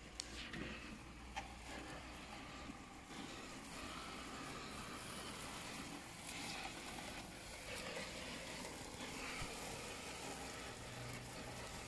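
3D-printed robotic lawn mower running over grass, a faint steady whir of its electric motors, with a few small clicks in the first couple of seconds.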